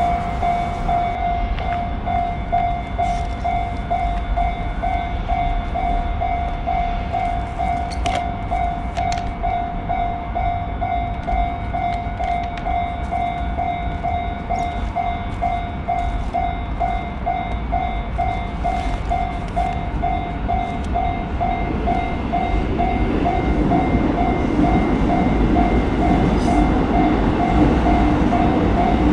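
Level-crossing warning bell clanging steadily at about two strokes a second over the rumble of a passing train, which grows louder near the end.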